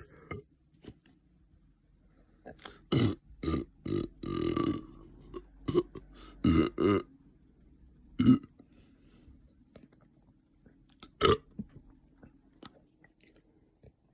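A person burping repeatedly: a quick run of short burps with one longer, drawn-out burp about four seconds in, then single burps at about eight and eleven seconds, the one near eight seconds the loudest.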